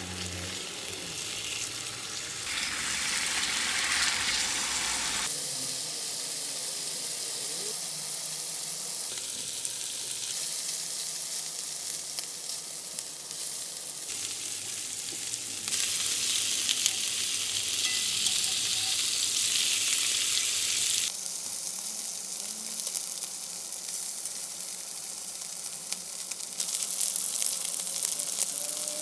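Pork belly slices sizzling and frying in their fat on a hot round griddle pan over a portable gas stove. The sizzle is a steady hiss that steps louder and quieter several times.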